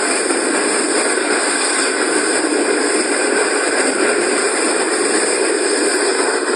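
Train running at speed: a loud, steady rushing noise with no clear rhythm.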